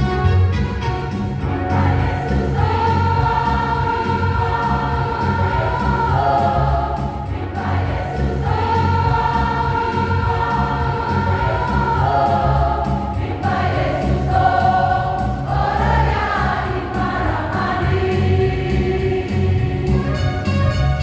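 Church choir singing a gospel song in parts, holding long notes, over a steady instrumental accompaniment.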